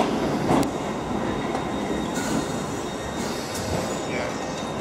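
London Underground D78 Stock District line train running into a station platform and past at close range: a steady rumble of wheels on rail with a few clicks over the rail joints and a faint wheel squeal.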